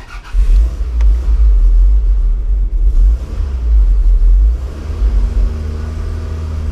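1991 Toyota Celica GT's four-cylinder engine coming in abruptly about a third of a second in, running loud and uneven with a low rumble, then settling to a steadier, lower note from about four and a half seconds in as the clutch is let out. The clutch takes up only near the top of the pedal travel, a high biting point that the owner puts down to air in the clutch hydraulics.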